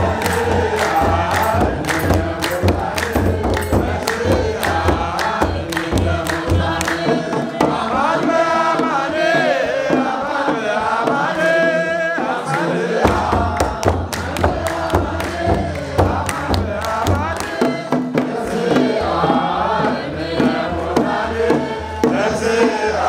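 Ethiopian Orthodox congregation singing a hymn together to hand clapping and the beat of kebero drums. The deep drum beats drop out for several seconds midway, then come back in.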